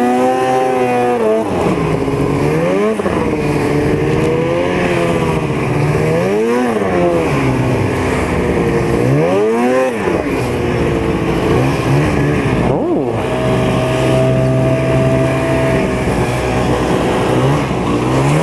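Snowmobile engine under way across snow, revving up and down several times as the throttle is worked, then holding a steady note for a few seconds past the middle.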